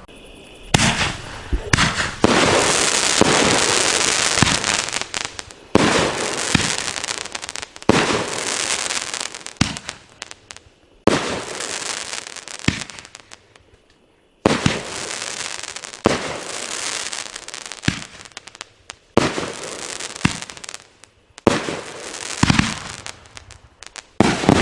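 A 12-shot, 500-gram consumer firework cake (Fisherman Fireworks' The Challenger) firing straight up. A sharp shot comes every one to three seconds, each followed by a long crackling hiss from the breaks, with a brief lull about two-thirds of the way through.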